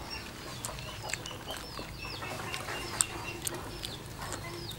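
Chickens and small birds calling: many short high chirps that fall in pitch, several a second, with a sharp click about three seconds in.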